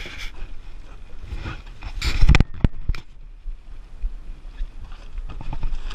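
Wind and clothing rubbing over a body-worn action camera's microphone, rustling and rumbling, with a loud thump about two seconds in and two sharp knocks just after it.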